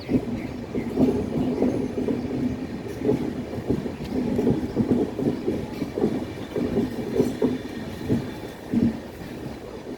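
Kanyakumari–Howrah Superfast Express passenger train running on a gently curving line: a steady low rumble with irregular clattering knocks of the wheels over the track.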